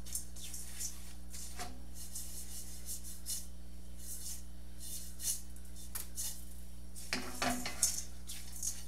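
Silicone spatula scraping and stirring dry breadcrumbs around a stainless steel skillet in short, repeated strokes, with the pan shaken to toss the crumbs as they toast. There is a louder clunk about a second and a half in and a few more near the end.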